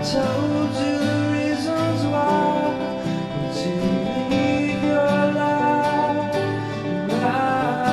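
Background music with acoustic guitar playing, in a country style.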